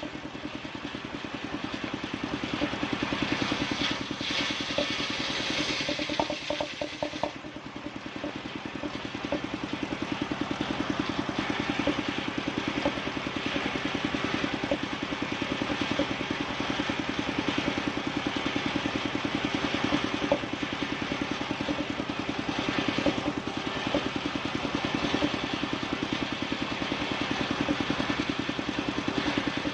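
Engine of a wood-cutting saw machine running steadily with a fast, even beat. For about the first seven seconds a higher rasping sound rides on top of it, then stops suddenly.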